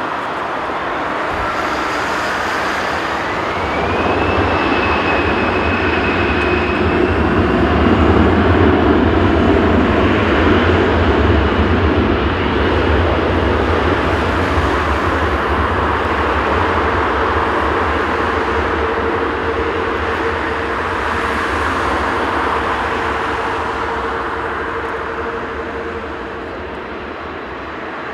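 Boeing 787's Rolls-Royce Trent 1000 turbofan engines spooling up to takeoff power: a whine rises in pitch over the first few seconds and then holds, under a steady jet roar with a deep rumble that is loudest about a third of the way in, as the airliner starts its takeoff roll.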